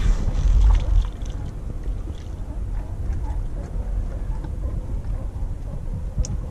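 Water rushing and rumbling against a camera dipped below the sea surface: a louder churn in about the first second, then a steady muffled underwater rumble with a few faint ticks.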